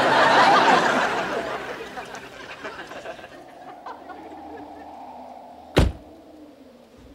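A loud rushing noise that fades away over the first three seconds, then a door slammed shut once, a single sharp thud about six seconds in.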